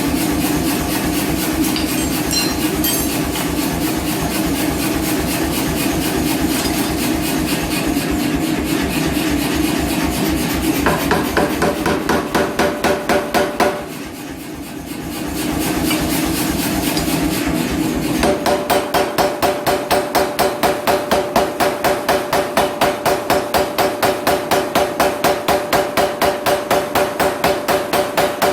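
A power hammer running and striking steel in a fast, even rhythm. It eases off briefly about halfway through, then resumes at about three to four blows a second, with the steel ringing under each blow.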